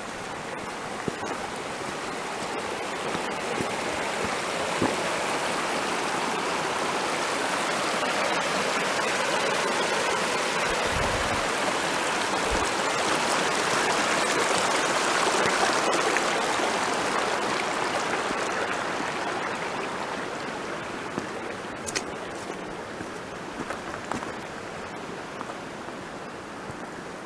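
Shallow creek running over rocks: a steady rushing and splashing that grows louder toward the middle and then fades away.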